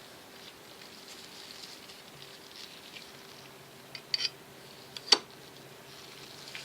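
Light handling noise of small knife parts and tools on a workbench, with a short cluster of small clicks about four seconds in and one sharper click about a second later. A faint steady hum runs underneath.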